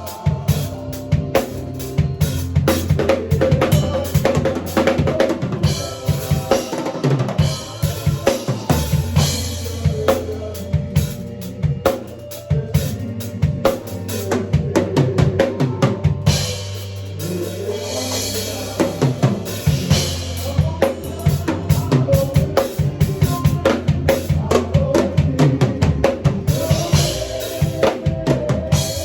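A drum kit played fast and busy, with rapid bass-drum, snare and rimshot strokes. Steady bass notes and held chords sound underneath.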